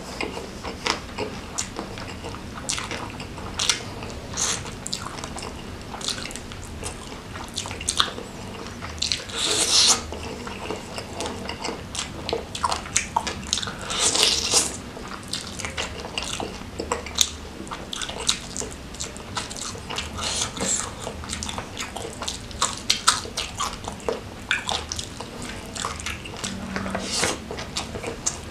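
Close-miked wet eating sounds of a person eating fried gourami in chilli sambal by hand: steady chewing and lip smacks with many small clicks, and two louder, longer bursts, the first just before 10 seconds in and the second around 14 seconds as a mouthful is taken.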